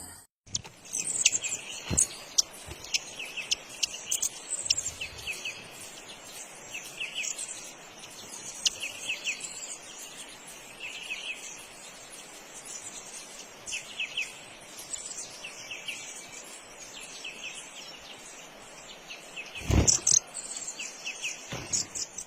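Small birds chirping: many short, high calls scattered throughout. There is one loud thump near the end.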